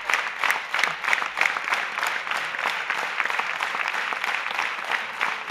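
Audience applauding. For the first two seconds the clapping falls into a rhythm of about two claps a second, then it turns into a dense, even applause.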